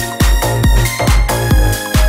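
Electronic dance music with a steady, fast kick drum, about four beats a second, under sustained synth tones.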